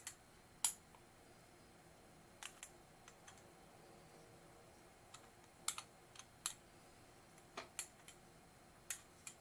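Scattered light clicks and taps at irregular intervals, some in quick pairs: a foam stencil dauber being dabbed up and down to apply paint through a plastic stencil.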